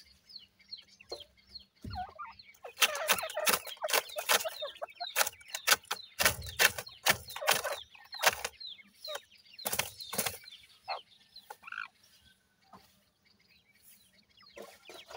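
Francolin chicks peeping with many short, high, falling chirps, mixed with bursts of scuffling in loose gravel. The activity is busiest in the middle and thins to a few scattered calls near the end.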